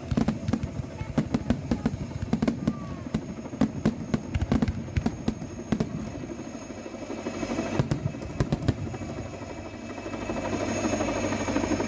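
Fireworks display: a dense, irregular run of bangs and crackling from bursting aerial shells and fountains. The bangs thin out after about eight seconds while a steady rumble builds near the end.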